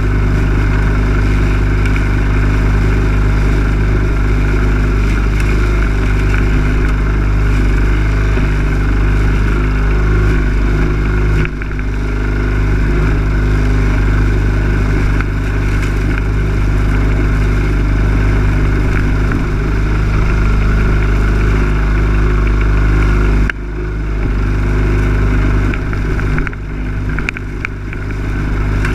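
Lawn mower engine running loudly and steadily, picked up by a camera mounted on the mower, with heavy low rumble. The sound dips briefly partway through and turns uneven in the last few seconds.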